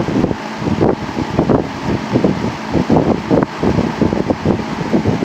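1970s Champion 20-inch box fan with a Westinghouse motor running on high, its blade pushing a strong stream of air that buffets the microphone in uneven gusts.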